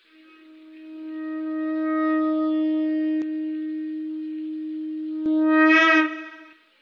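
Conch shell (shankh) blown in one long note that swells in over the first two seconds and holds. It grows louder and brighter near the end and then stops, sounding the close of the meditation.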